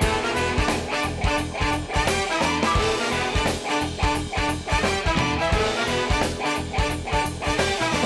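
Upbeat swing-style instrumental music with a steady beat, starting suddenly: a radio show's opening theme.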